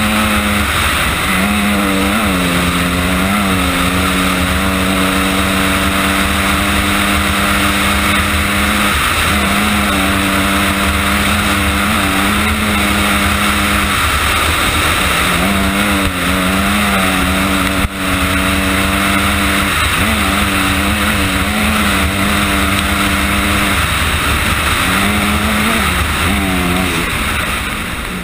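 Honda CRF250R's single-cylinder four-stroke engine running hard on a dirt trail, its pitch dipping and climbing again every few seconds as the throttle is eased and reopened, over a steady rush of wind and riding noise.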